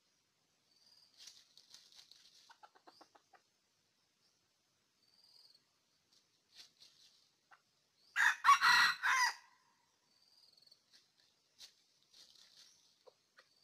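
Red junglefowl rooster crowing once, a single short loud crow of about a second and a half, around eight seconds in. Soft rapid clucking comes earlier, and faint high chirps are scattered throughout.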